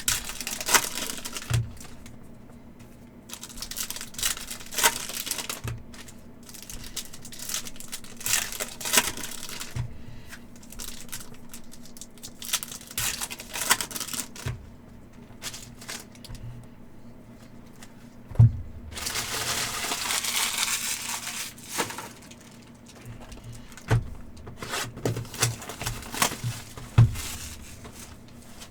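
Foil trading-card pack wrappers crinkling and tearing open in repeated spells, the longest about two-thirds of the way in, with a few sharp knocks of packs or boxes set down on the table.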